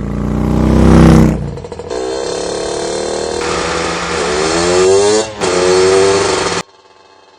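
A motor vehicle engine revving, its pitch climbing and dropping, in several loud spliced sections that start and cut off abruptly.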